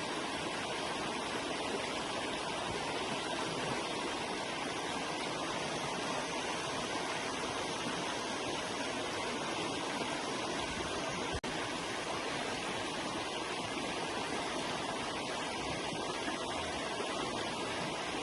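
Forest river flowing in a steady, even rush of water, with a momentary drop-out about eleven seconds in.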